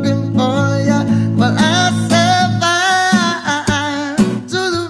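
Reggae song playing: a sung vocal melody over a steady low bass line and accompaniment.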